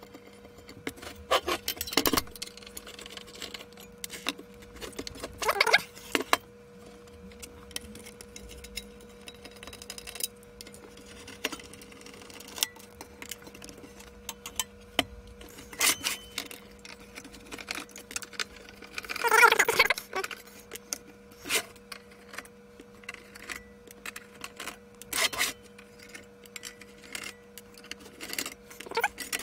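Small screwdriver undoing screws on an aluminium equipment case, with scattered sharp clicks of metal on metal and a few short scraping rattles as screws and panels are handled. The loudest is a rattling metal scrape about two-thirds of the way through, all over a faint steady hum.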